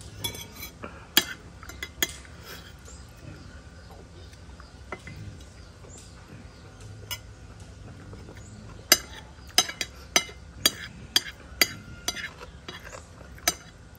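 A metal spoon clinking and scraping on a plate while eating. A few clinks come in the first two seconds, then a quieter stretch, then a run of sharp clinks, about one to two a second, from about nine seconds in.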